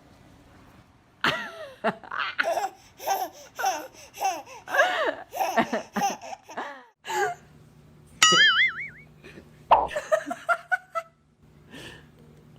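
A baby laughing in a run of short giggles, then a high, wavering squeal about eight seconds in.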